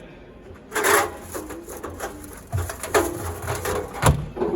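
An LG washing machine being handled: its door clunks open about a second in, then the drum is turned by hand with a low rumble and a held squeaking tone, and a knock comes near the end.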